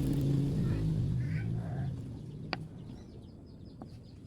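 Hum of a passing motor vehicle's engine, fading away over the first two seconds. Soft bird calls follow, with one sharp click about two and a half seconds in and faint high chirps near the end.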